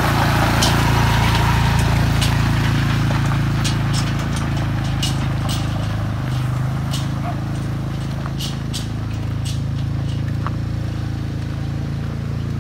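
Quad ATV engine running steadily as it tows a loaded trailer over gravel, slowly fading as it moves away, with scattered light clicks.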